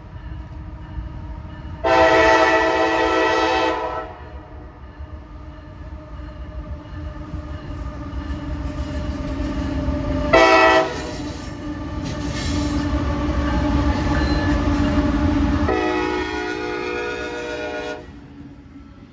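Locomotive air horn sounding a long blast, a short blast, then another long blast, over the low rumble of a passing train that grows louder toward the middle and fades near the end.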